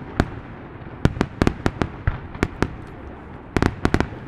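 Fireworks bursting at a distance: a string of sharp bangs and crackles, a few about a second in and a rapid volley near the end, with echoing rumble between them.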